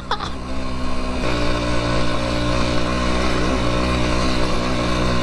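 Motorcycle engine running steadily under way on a rough dirt road, its note shifting slightly about a second in.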